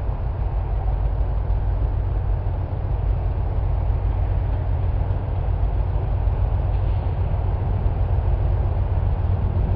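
Approaching freight train's diesel locomotives, a GE C40-8W leading with an EMD SD75I and a second C40-8W behind: a steady low rumble that grows slowly louder as the train nears.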